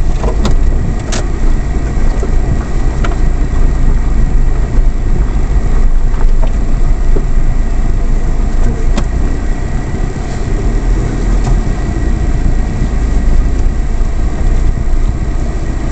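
Suzuki Carry kei truck's engine running at low speed and settling to an idle, heard from inside the cab with the windows open. Steady low rumble with road and cabin noise and a few brief clicks.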